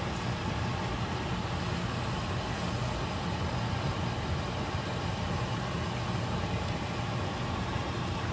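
Pot of water at a rolling boil on a stovetop: a steady low rumble with a hiss over it.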